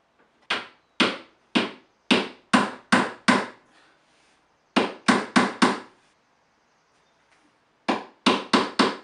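Claw hammer striking a wooden nosing strip onto the top edge of a plywood shelf: three runs of sharp, quick blows, about seven, then four, then four, with short pauses between.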